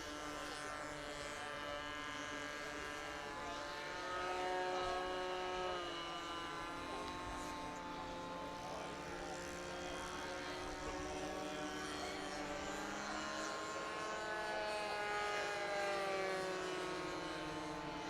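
Engines of several radio-controlled Panic aerobatic model aircraft running at once, their overlapping buzzing tones rising and falling in pitch as the planes take off and fly around.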